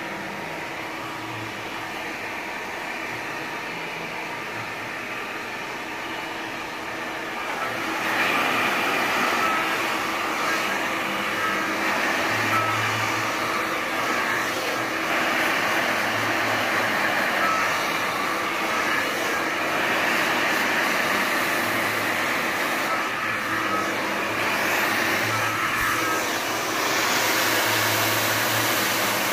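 Handheld hair dryer blowing steadily, a rush of air over a constant motor hum. It is softer for the first several seconds and louder from about eight seconds in.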